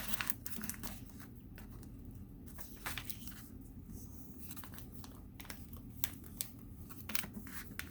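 Paper and sticky tape handled by hand: scattered crinkles and sharp crackles as tape is pressed on and folded over a paper squishy.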